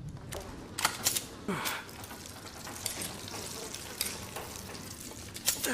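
Irregular light clicks and rattles, as of something being handled, with two short falling squeaks: one about a second and a half in and one near the end.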